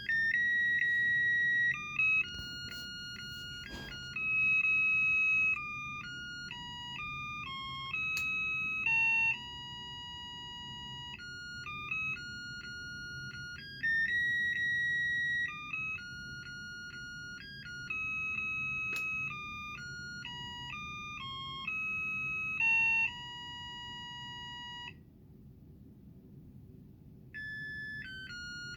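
Mr. Christmas "Lights and Sounds of Christmas" musical light set playing a Christmas carol as a simple electronic beeping melody of held and short notes, pausing for about two seconds near the end before the tune starts again.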